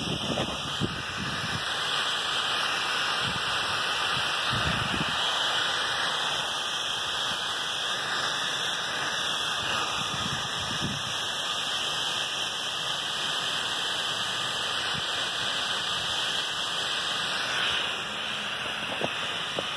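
Air rushing steadily out from under a water well's cap as a loud hiss. It is a naturally aspirating well expelling air as barometric pressure rises.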